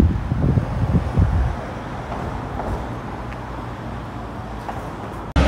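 Wind buffeting the microphone in irregular low gusts for the first second and a half, then settling into a steady outdoor rumble.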